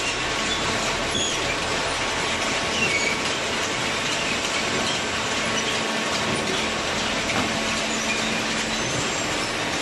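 Hydraulic cardboard baler running with a steady mechanical noise, with faint metallic squeaks over it.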